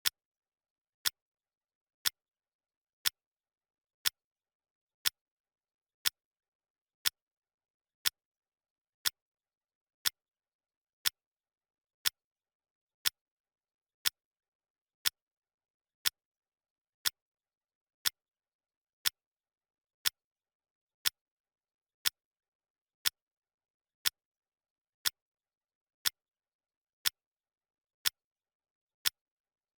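Clock ticking sound effect: sharp, even ticks once a second, with silence between them, marking the countdown's seconds.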